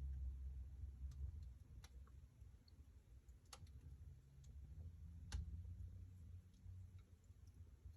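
Wood fire burning in a fireplace: a low rumble of the flames with scattered sharp crackles and pops, about four louder ones among fainter ticks.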